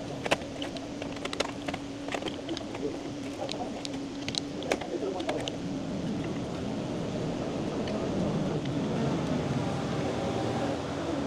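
Light metallic clicks and taps as the small steel parts of a gearbox oil pump are handled and taken apart, over a steady workshop hum. A denser handling noise builds up in the second half.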